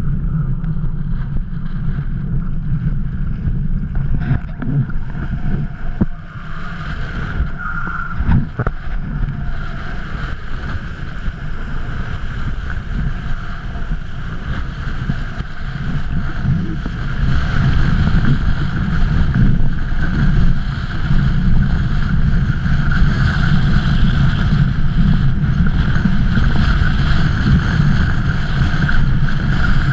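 Strong wind buffeting the action-camera microphone, a steady low rumble, over the rush of choppy water under a kiteboard as it planes. It grows louder a little past halfway.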